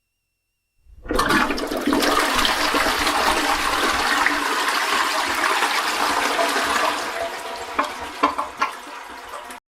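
A loud rush of running water starting about a second in, easing off after about six seconds with a few clicks near the end, then cutting off suddenly.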